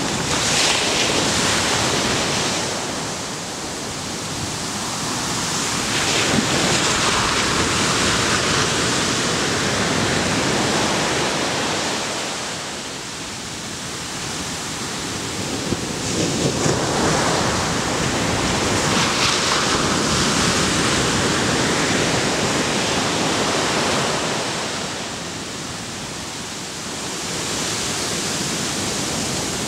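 Ocean surf breaking on a sandy beach: a continuous rushing wash that swells and fades in long surges, about every ten seconds.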